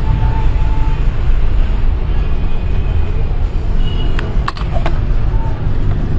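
A steady low rumble, with a few sharp clicks about four and a half seconds in.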